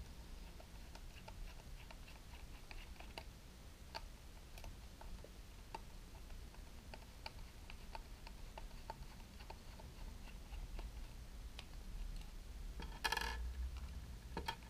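Faint, irregular small clicks and ticks of a screwdriver turning a screw out of the plastic housing of a Parkside cordless LED work light. About 13 seconds in there is a louder, brief clatter of handling.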